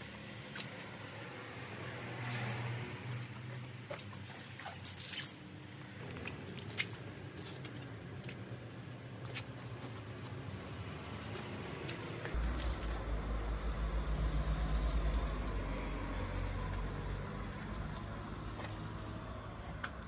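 A soapy wash mitt squishing and rubbing over a car's wet, foamed paintwork and wheel during a hand wash, with scattered clicks. About twelve seconds in, the sound changes abruptly and a strong low rumble takes over.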